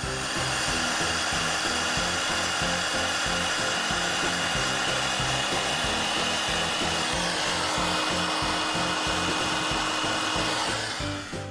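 Hot-air blower running steadily close to the microphone, a rushing blow with a high whine that starts suddenly and dies away near the end.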